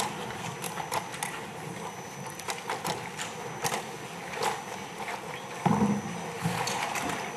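Room sound of a legislative chamber: scattered light clicks and knocks at irregular intervals as people sit down and settle at the podium and desks, with a louder thump about six seconds in.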